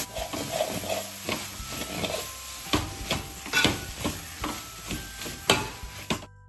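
Metal spoon stirring and scraping sliced onions and green chillies as they sauté in coconut oil in an aluminium pot, a steady sizzle under irregular clinks and scrapes of the spoon against the pot. It cuts off suddenly near the end.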